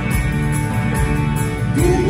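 Live rock band playing an instrumental passage: electric guitar over bass and drums, with cymbal strokes keeping a steady beat.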